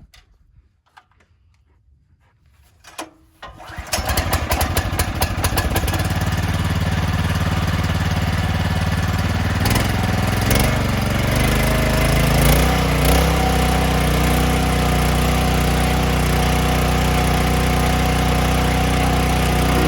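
STIHL RB800 gas pressure washer's engine starting, catching about four seconds in after a few quiet clicks, then running steadily with its note shifting a few times.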